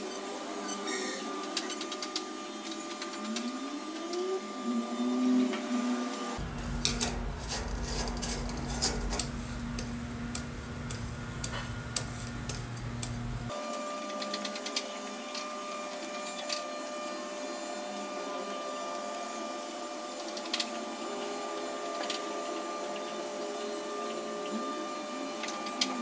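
Handling sounds of a Royal typewriter's ribbon and plastic ribbon spools: scattered light clicks and rubbing as the ribbon is wound and the spools are fitted into the ribbon cups. A steady background hum runs underneath, and the clicks are densest in the middle.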